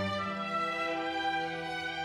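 Chamber orchestra playing, with bowed strings holding sustained notes; a low bass note drops away just after the start.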